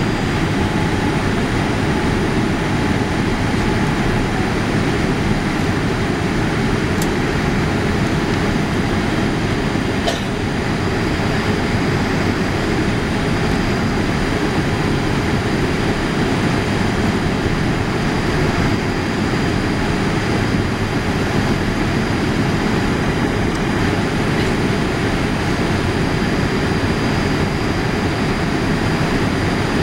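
Boeing 787-8 cabin noise during the climb after takeoff: the jet engines at climb power and air rushing past the fuselage make a steady, even rumble, heaviest in the low range, with a faint high steady whine.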